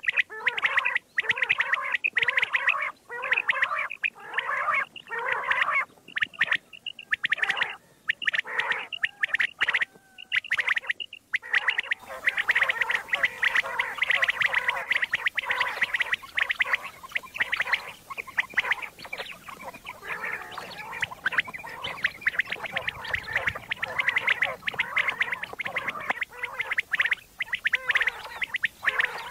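Common quail calling over and over in quick succession. About twelve seconds in, the recording changes to a hissier one with the calls packed even closer together.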